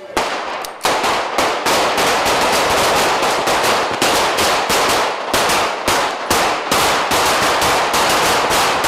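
Sustained gunfire in a street shootout, handguns among the weapons: dozens of sharp shots in quick, overlapping succession, several a second. It starts suddenly just after the start and eases off right at the end.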